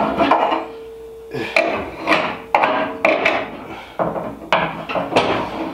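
Repeated knocks and clunks from a large carbon fiber wing and its metal mounting uprights being handled and set onto the car. About two knocks a second in places, with a brief steady tone in the first two seconds.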